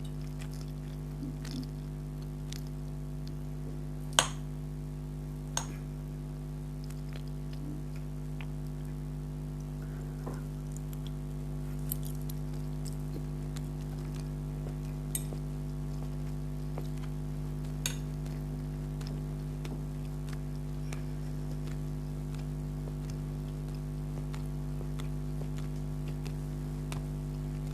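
Spaghetti being eaten: faint chewing and a few sharp clinks of cutlery on a plate or glass, over a steady electrical hum.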